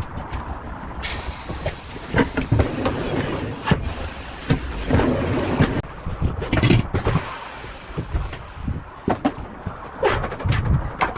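Irregular metallic knocks and clanks from tyre-changing work on a car wheel, over a steady roadside traffic rumble.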